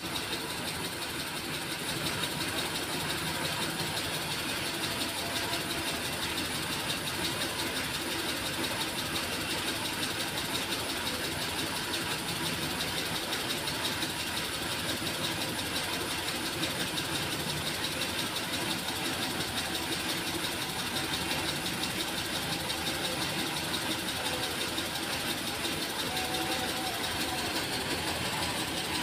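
Steady, even running noise of machinery, unbroken and without a clear rhythm.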